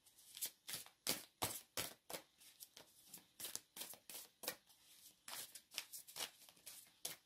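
A deck of tarot cards being shuffled by hand: a quick, uneven run of soft papery swishes and slaps, about two to three a second.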